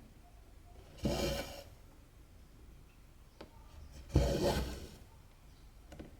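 Cotton embroidery thread, two strands, being pulled through cross-stitch fabric: two rasping pulls, about one and four seconds in, each starting sharply and dying away within a second. A faint tick comes a little before the second pull.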